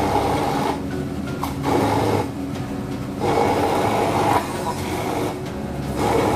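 Electric hand blender running, grinding sambal chilli paste; its steady motor tone swells every couple of seconds as the blade works through the mix.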